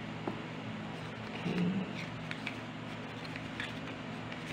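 Faint clicks and rustles of a small cardboard box being handled and opened, over a steady low hum.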